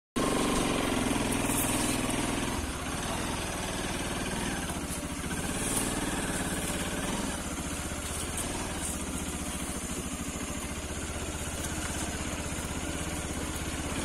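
Motorcycle engine running steadily, heard up close from the bike as it is ridden along a narrow dirt trail.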